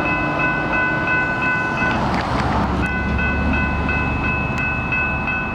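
Railroad grade-crossing bell ringing in a steady rhythm, about three strikes a second. A train's low rumble comes in about two seconds in, with a short burst of rushing noise that briefly drowns the bell.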